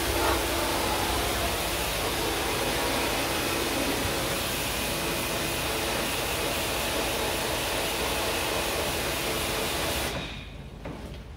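High-pressure washer running and its water jet spraying, a steady hiss over a motor hum, cutting off suddenly about ten seconds in.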